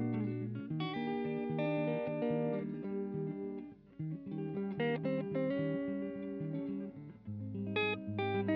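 Instrumental background music: a melody of short pitched notes over low held notes.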